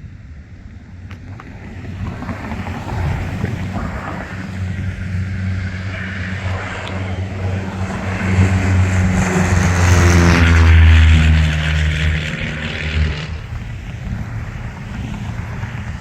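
Propeller airplane flying low overhead. Its engine and propeller drone builds, is loudest about ten seconds in, drops in pitch as it passes, and falls away a few seconds later.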